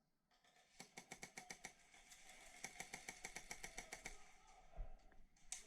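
Airsoft gun firing a rapid string of shots, about six or seven a second for roughly three seconds, followed by a single sharp crack near the end.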